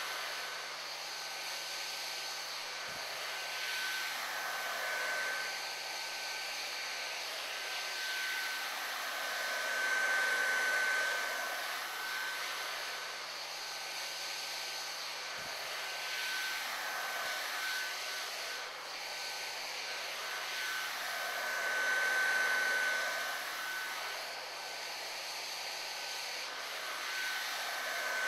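Hot-air heat gun blowing steadily, a thin whistle over the rush of air, swelling and fading a few times as the nozzle is moved around a molded heat-shrink boot to soften it.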